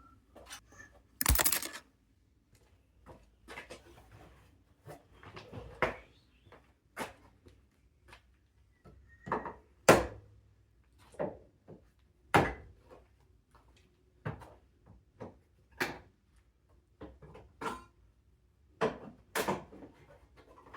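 Irregular knocks, clicks and clanks, about two dozen, from tools and parts being handled during disassembly work. The loudest comes about a second in, with other loud ones near the middle.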